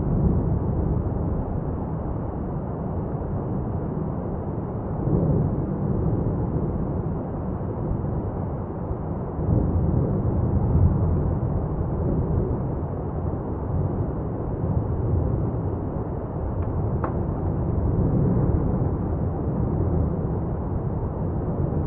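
Lava fountain erupting from Etna's South-East Crater during a paroxysm: a continuous deep rumble that swells louder about five seconds in and again around ten seconds in.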